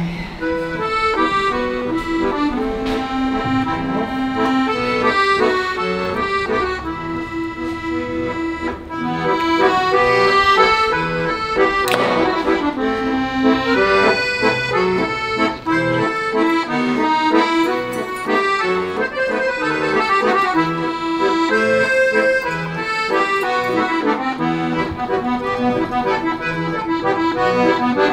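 Instrumental background music: a melody moving over held chords.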